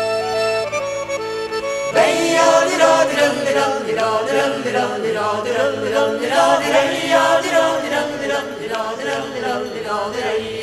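Music: an accordion playing steady held notes, then about two seconds in a sudden switch to a group of voices singing in chorus.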